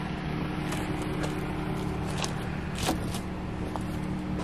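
Steady hum of an idling vehicle engine, with a few light clicks and knocks scattered through it.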